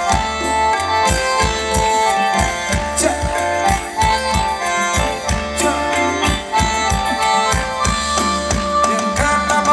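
Thai luk thung band music: a reedy khaen melody of held notes over a steady drum beat, with no singing.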